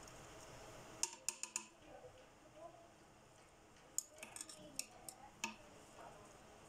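Light clicks and taps of a spoon and bowl as fried carrots are scraped out onto rice in a cooking pot, in two short flurries: one about a second in, another from about four to five and a half seconds.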